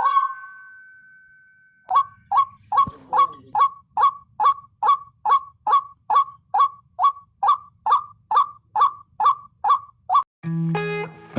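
White-breasted waterhen (ruak-ruak) calling: one call at the start, then from about two seconds in a fast, even run of about twenty repeated short calls, about two and a half a second, that stops near the end.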